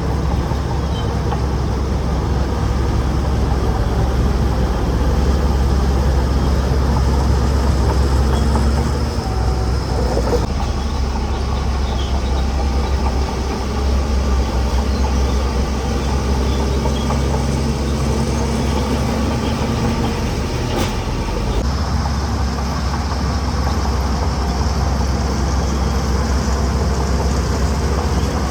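Heavy diesel engine of earthmoving machinery running steadily under work, swelling louder for a few seconds before settling back.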